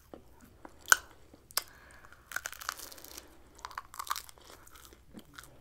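A person chewing grilled chicken and pork kabobs close to the microphone. Sharp mouth clicks come about a second in and again shortly after, followed by two longer stretches of chewing.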